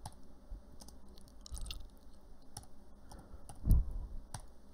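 Faint, scattered keystrokes on a computer keyboard: a handful of soft, separate clicks with gaps between them, and one somewhat louder, duller knock about three-quarters of the way through.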